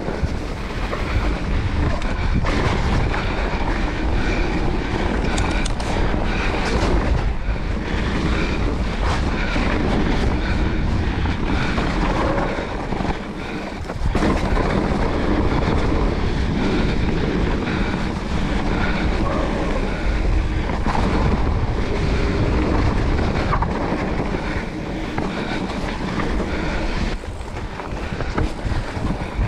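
Specialized Turbo Levo e-mountain bike descending a gravel trail at speed: steady tyre rumble and wind buffeting the microphone, with constant clatter and rattling from the bike over rough ground. The noise drops briefly about 13 seconds in and again near the end.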